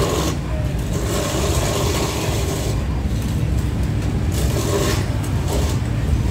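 Busy street traffic of motor scooters and cars: a steady low rumble with engines swelling and fading as vehicles pass, and a scooter passing close near the end.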